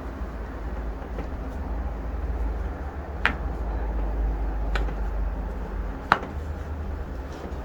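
Joints cracking during a chiropractic adjustment: three sharp pops about a second and a half apart in the second half, the last the loudest, over a steady low hum.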